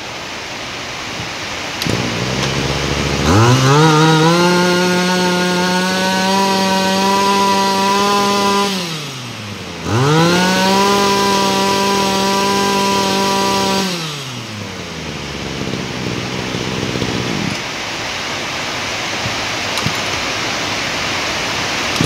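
Kawasaki TG24 two-stroke brush-cutter engine catches about two seconds in and idles. It is then revved hard twice, holding high speed for several seconds each time, and settles back to idle. It catches readily on a light pull, which the seller takes as a sign of good compression.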